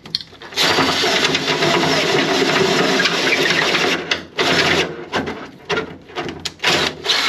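Cordless drill running under load into timber framing: one long run of about three and a half seconds, then several short bursts.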